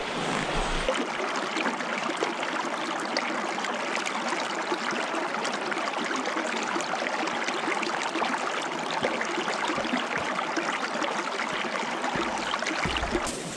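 A shallow mountain creek running over rocks and stones: a steady rush of water.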